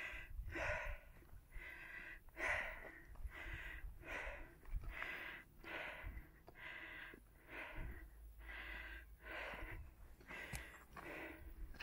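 A person panting hard, close to the microphone: a quick, even run of loud breaths in and out, about one every three-quarters of a second, out of breath from climbing a steep slope.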